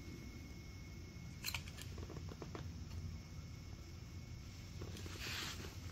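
Small camp stove burning with a low steady rumble. A sharp click comes about a second and a half in, and a short rustle near the end.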